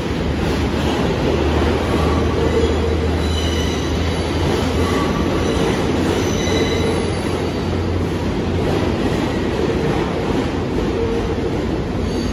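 New York City subway train rolling through the station with a steady rumble, and short high-pitched wheel squeals coming and going in the middle stretch.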